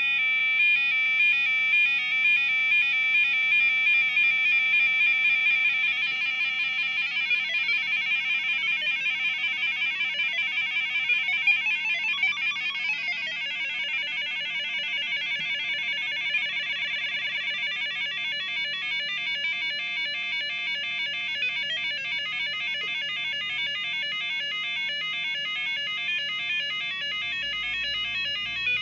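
Arduino Uno four-step sequencer playing a fast looping pattern of square-wave beeps, one pitch per step. The step pitches shift as the potentiometer knobs are turned.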